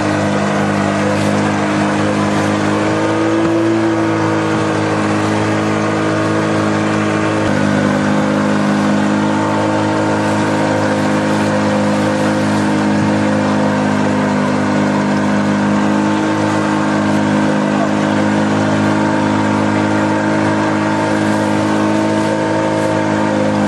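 Engine of a motorised fishing raft running steadily under way, a constant engine note with its pitch shifting slightly about seven and a half seconds in, over a steady hiss of wind and water.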